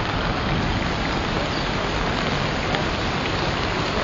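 Steady rushing noise of fast-flowing floodwater in a swollen river, heard through a mobile phone's microphone.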